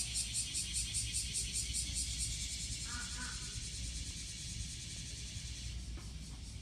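Cicadas singing, a high pulsing buzz that stops near the end, over a steady low rumble. A brief higher call comes about halfway through.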